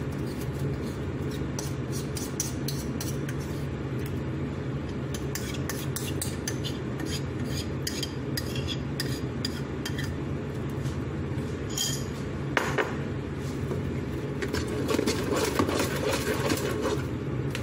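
A spoon clinks and scrapes against a bowl as thick date paste is scraped into whipped egg batter, over a steady low hum. Near the end an electric hand mixer starts whirring in the batter.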